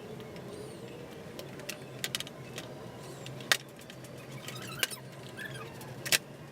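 Scattered sharp clicks and metal clinks of hand tools and bolts as fairing fasteners come off a motorcycle, the loudest about three and a half seconds in, over a steady low hum.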